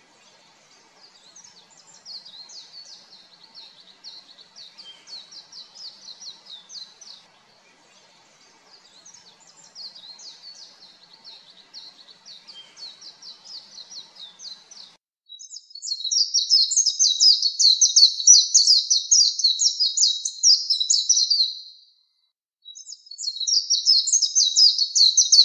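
Oriental white-eye singing: long runs of fast, high twittering phrases. The song is faint at first, becomes much louder and clearer about fifteen seconds in, and breaks off briefly about twenty-two seconds in before resuming.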